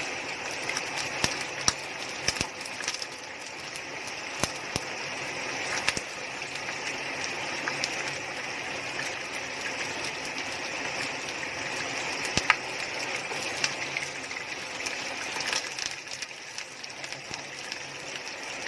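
Heavy rain pouring down: a steady hiss with scattered sharp clicks and pops.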